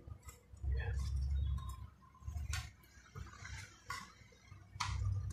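Chef's knife clicking and scraping against a wooden chopping board as raw shrimp are deveined, with a few sharp ticks and dull knocks on the board.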